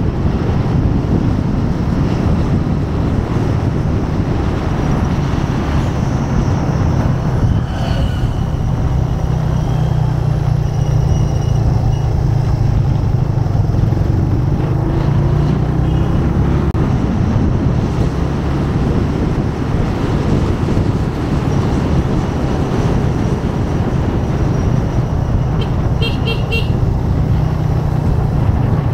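Motorcycle engine running steadily at cruising speed, with road and wind noise. Short horn toots sound a few times, ending near the end with a quick string of short beeps.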